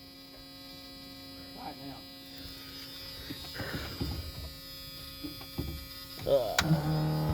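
Steady electrical hum with a few faint knocks, then about six seconds in the carbureted 5.3 LS V8 turns over, catches with a rising sweep and settles into a steady fast idle.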